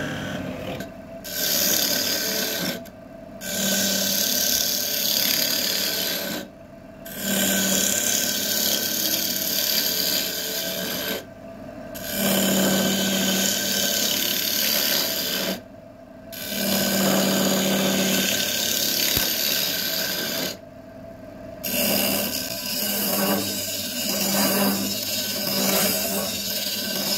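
Wood on a turning lathe being worked by a tool or abrasive, a rough scraping hiss that comes in passes of several seconds with about six short breaks between them. The passes get choppier near the end.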